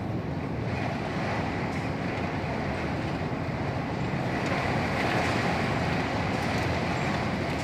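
Storm wind blowing steadily, with low rumbling from wind buffeting the microphone.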